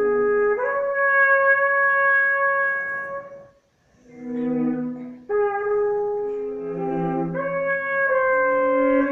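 Trumpet and a bowed string instrument playing long held notes together, their lines overlapping. The sound breaks off briefly a little over three seconds in, and a new note enters sharply about five seconds in.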